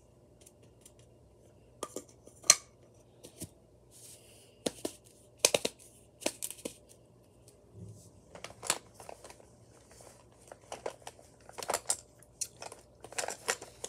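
Irregular taps, clicks and short scrapes of fingers handling a small jar and its lid, with the sharpest click about two and a half seconds in.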